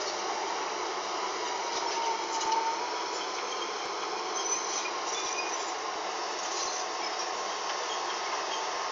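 Rapier W2000 walking dragline's machinery running: a steady mechanical drone with a faint whine that dips slightly in pitch and comes back up a couple of seconds in.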